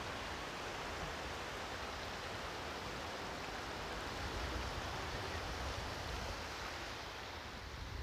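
Shallow surf washing up over wet sand, a steady even rush of water.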